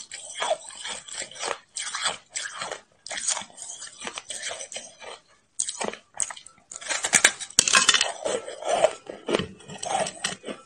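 A block of packed shaved ice being bitten and chewed: a run of irregular crisp crunches, coming thickest and loudest about seven to eight seconds in.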